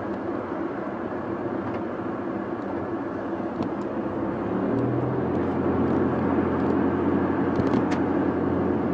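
Engine and road noise of a moving vehicle, heard from inside it: a steady low drone that grows louder and firmer about halfway through.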